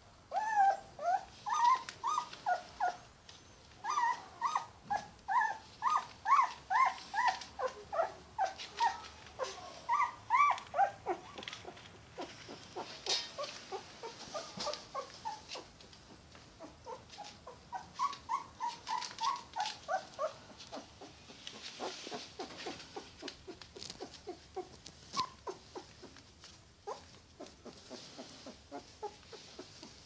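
Yorkie puppy crying: runs of short pitched cries, about three a second, coming in bouts that are loudest in the first part and fainter towards the end.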